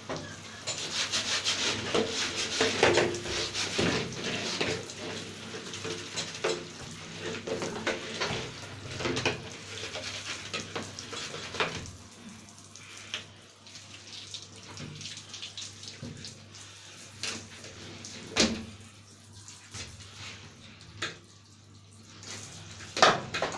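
Tap water running and splashing as plastic vacuum cleaner parts are rinsed under it, with knocks of the parts being handled. The running water stops about halfway through, leaving scattered knocks and clatter.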